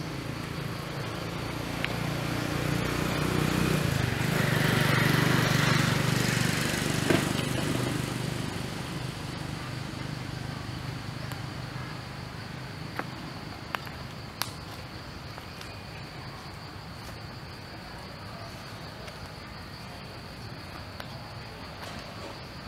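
Steady high-pitched drone of insects in the trees. A louder low rumble swells and fades during the first eight seconds or so, and a few sharp clicks stand out near the middle.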